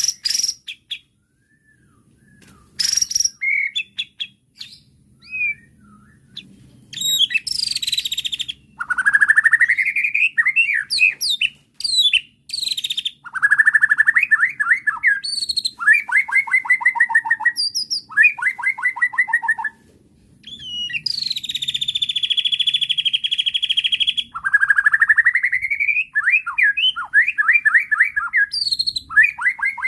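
White-rumped shama (murai batu) singing an agitated, fast and varied song of whistled phrases, rising sweeps and rapid trills. A long harsh buzzing note comes about 21 to 24 seconds in. The first few seconds hold only scattered short notes.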